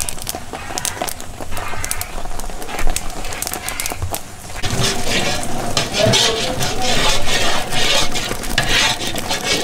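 Wood fire crackling under a cast-iron butchering kettle. From about five seconds in, a long iron paddle stirs and scrapes through a steaming, bubbling kettle of cooking mush, with a sizzling hiss.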